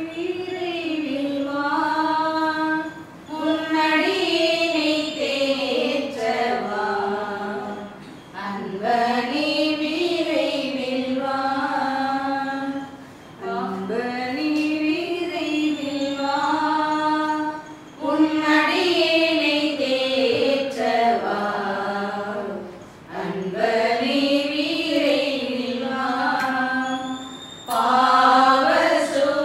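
A slow communion hymn, sung without instruments in phrases of a few seconds with short pauses for breath between them.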